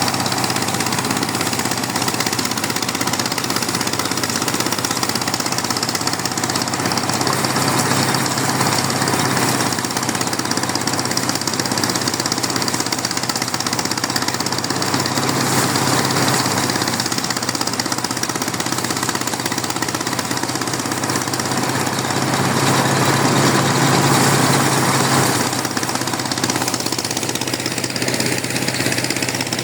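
Engine of rice farm machinery running steadily and loudly with a hard, rapid chug, swelling a little about three quarters of the way through.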